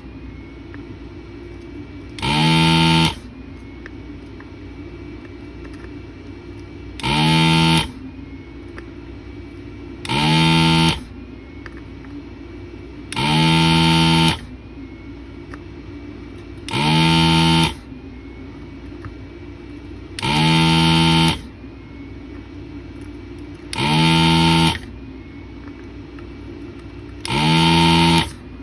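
Anesty ZD-915 desoldering station's vacuum pump buzzing in eight bursts of about a second each, roughly every three and a half seconds, as the trigger is pressed to suck molten solder out of IC pins. A low steady hum runs underneath between the bursts.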